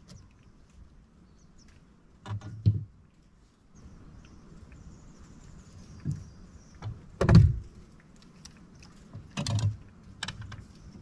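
Knocks and thumps from handling gear in a small boat: a few separate dull bumps, the loudest about seven seconds in.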